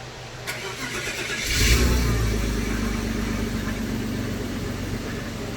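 BMW E36 engine cranked on the starter, catching about a second later with a brief flare in revs, then settling to a steady idle. The idle is smooth and unassisted, a sign that the vacuum leaks behind its misfire and rough idle have been fixed.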